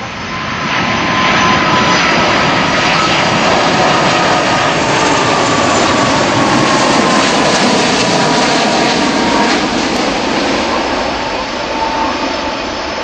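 Jet engines of a Middle East Airlines Airbus A330-200 flying past, a loud steady roar with a whine that drops slightly in pitch. The roar swells over the first second or two and eases near the end.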